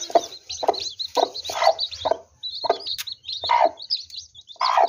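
Newly hatched chicks peeping continuously in short, high chirps, with a broody hen giving short, harsh clucks every second or so.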